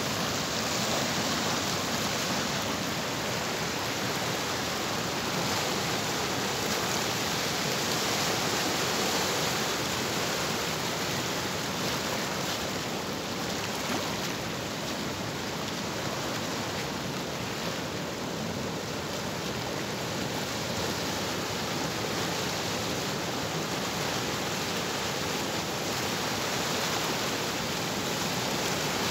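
Small waves breaking and washing over a rocky shoreline close by: a steady rush of surf.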